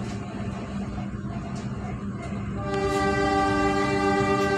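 The steady rumble of a moving passenger train, heard from inside the coach. About two and a half seconds in, the locomotive horn sounds one long, steady blast over it.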